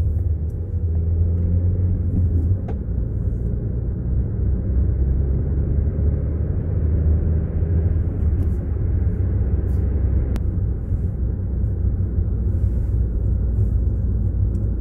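Steady low rumble of road and engine noise heard inside the cabin of a 2020 Skoda Superb while it is driven.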